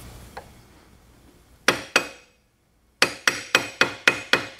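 A small hammer tapping the end of a screwdriver held against a fastener at the base of a rear wing upright, each blow a sharp metallic knock with a short ring. Two blows come about two seconds in, then after a pause a steady run of about four a second. The upright is stuck, held by a threaded insert that has started to pull out.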